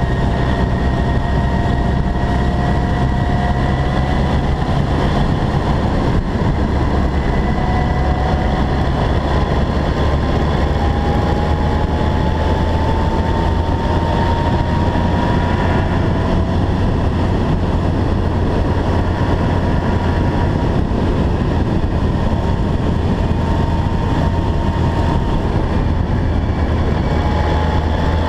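BMW K1200R inline-four motorcycle riding at a steady cruise, its engine whine rising and falling slowly with speed under a loud, steady rush of wind and road noise.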